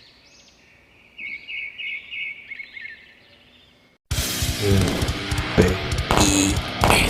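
Short high chirps in quick runs, like small bird tweets. About four seconds in, loud music and sound effects cut in suddenly.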